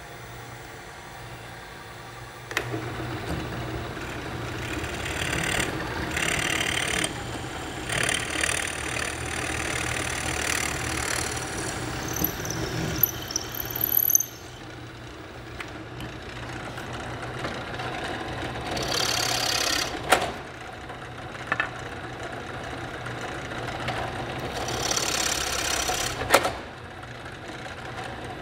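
Drill press running with its motor humming steadily as the bit bores into the end of a wooden axe handle. The cutting noise rises and falls in several bouts, with a brief high squeal partway through.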